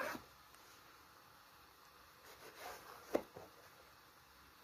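Kitchen knife cutting through stacked sheets of rolled dough on a board: faint scraping, then a single sharp tap of the blade against the board about three seconds in.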